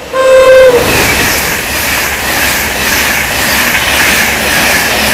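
An East Coast express passenger train sounds one short horn blast, about half a second long, then runs through the station at speed close by. A loud, steady rush of wheels on rail and moving air follows the horn.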